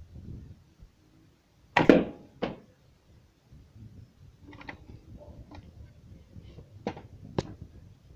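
A loud knock about two seconds in, with a short ring, then a second knock right after. Low handling noise follows, and two sharp clicks come near the end.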